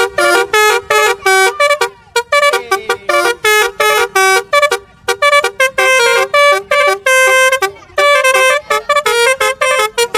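Basuri musical horn on an odong-odong playing a tune: a quick run of short, separate horn notes at about five a second, with a couple of brief pauses.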